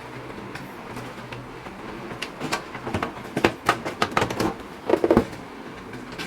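A quick run of clicks and knocks, the sound of PC parts being handled and fitted, about two to five seconds in, over a steady low hum.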